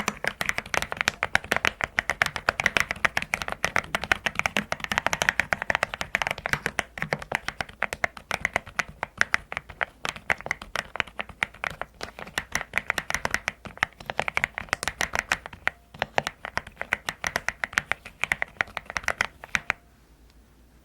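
Custom mechanical keyboard being typed on quickly: a dense run of pebble-like 'dogak-dogak' key clacks that stops about a second before the end.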